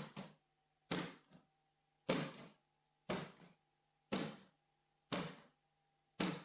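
A ball bounced on a wooden sports-hall floor and passed back and forth, about once a second: each bounce a sharp thud with a short echo, followed by a softer knock.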